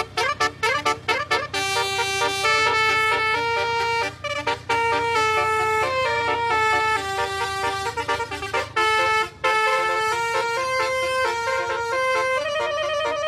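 A reedy wind-instrument melody played in held, stepping notes over a continuous low drone, with drum strikes throughout.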